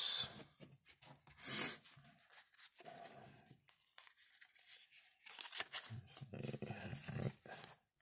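Baseball cards handled by hand: cardboard cards sliding and scraping against each other as they come off the stack, in short scrapes with small clicks, the loudest about one and a half seconds in, then a longer rustling stretch near the end.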